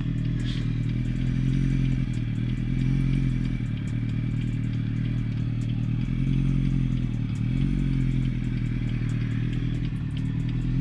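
Car engine and exhaust running steadily at low, even revs while cruising, the pitch easing up and down gently a few times.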